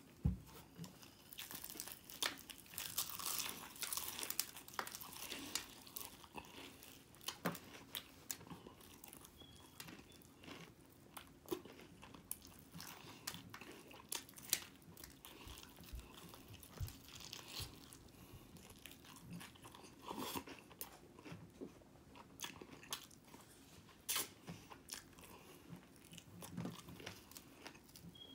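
Close-up sounds of someone eating whole breaded chicken wings by hand: irregular crunchy bites and chewing throughout, with a sharp knock right at the start.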